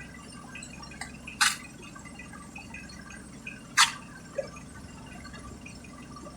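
Water dripping, with three or four sharp separate drops over a steady low hum.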